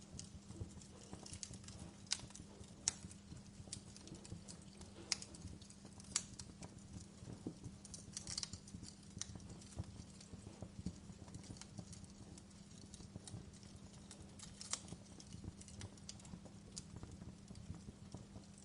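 Wood fire crackling in a fireplace: irregular sharp pops and snaps, a few louder than the rest, over a low steady rumble.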